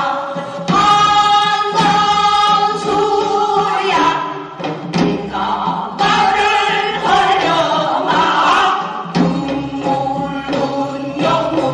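A group of voices singing a Korean folk song (minyo) together, in long held notes with a wide vibrato, pausing briefly between phrases.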